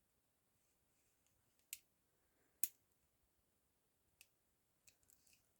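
Faint, sharp clicks of a bent paper clip working inside the lock of rigid handcuffs: a few separate clicks a second or more apart, the loudest about two and a half seconds in, then a quick cluster of small clicks near the end.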